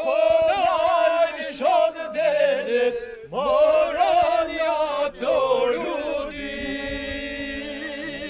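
A man singing an unaccompanied folk song, his voice swooping and ornamenting through long phrases and ending on a long held note.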